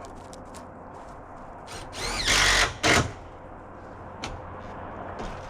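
Power drill driving a screw into the metal roofing: one run of about two-thirds of a second, then a short second burst.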